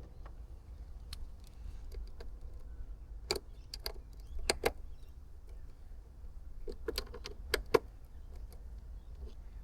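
Scattered small clicks and taps of hand work on a screw-mounted Anderson plug housing as it is loosened, in two clusters about three to five and seven to eight seconds in, over a steady low hum.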